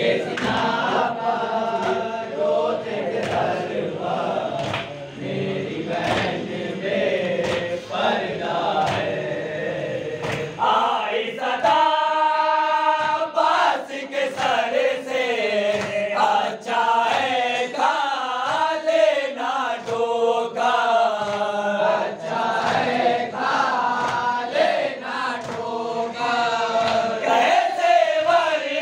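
Men's voices chanting a noha (Shia mourning lament), a lead reciter singing long held, wavering lines with the group joining in. Sharp chest-beating slaps of matam keep time about every second and a half.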